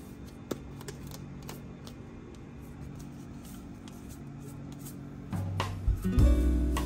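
A few scattered light clicks and taps of kitchen handling over a low hum, then background music comes in about five seconds in.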